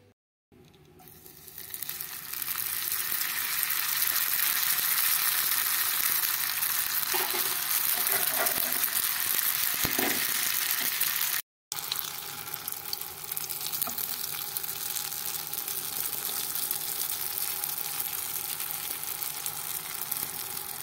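Burak parcels wrapped in thin pastry sheets frying in hot oil in a pan: a steady sizzle that builds up over the first couple of seconds. It breaks off for a moment about halfway through, then carries on a little quieter.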